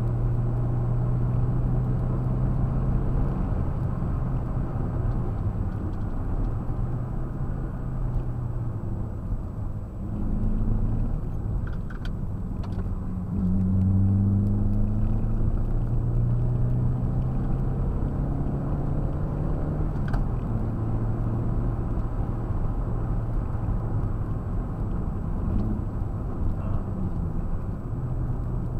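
Toyota MR2 AW11's mid-mounted engine, heard from inside the cabin, running hard at track speed over road and wind noise. Its note drops about ten seconds in, climbs and gets louder a few seconds later, and drops again about twenty seconds in.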